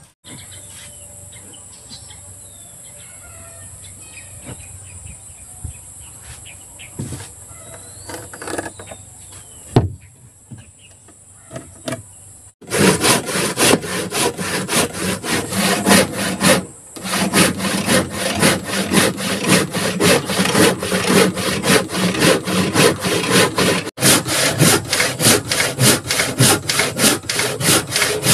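Insects buzzing steadily and high, with a few light knocks. About a dozen seconds in, a hand saw starts cutting a wooden plank in fast, regular back-and-forth strokes, much louder, pausing briefly once.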